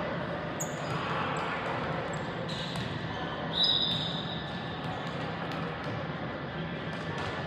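Volleyball being played in a gym: ball thuds and sneakers squeaking on the court over a murmur of voices in a large hall. A louder, short, high squeal comes about three and a half seconds in.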